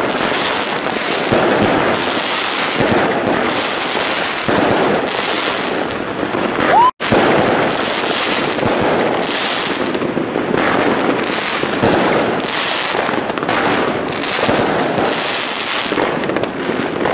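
A Rubro 'Secret Salute' 54-shot fireworks cake firing, its shots bursting into gold crackling stars: a dense, continuous crackling of rapid pops that goes on without a break. The sound cuts out for an instant about seven seconds in.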